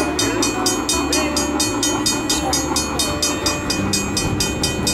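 Three-rail O-scale toy train running past on track: a steady electric motor hum with a rapid, regular clicking of wheels over rail joints, about six clicks a second.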